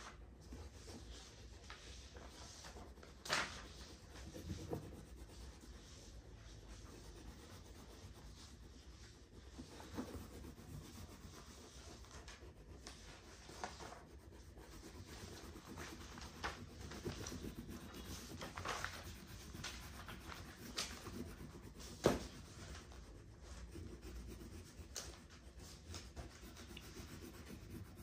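Oil pastel rubbing and scratching across paper on a wooden table as an area is shaded in with quick back-and-forth strokes, faint and steady. A few sharp taps stand out, the loudest about three seconds in and again a little after twenty seconds.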